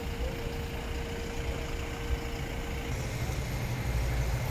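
Street traffic: vehicle engines running with a low rumble as an SUV drives past. A steadier low engine hum joins about three seconds in.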